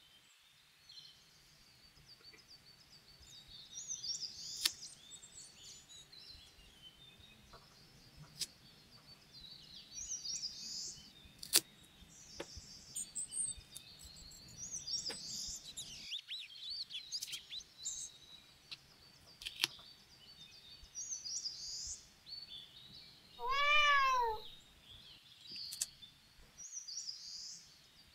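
Small paper-doll sticker parts being peeled off a backing sheet with metal tweezers: short high-pitched peeling rasps every few seconds, with sharp tweezer taps and paper rustles between them. About three-quarters of the way through comes a brief pitched squeal that bends in pitch, the loudest sound.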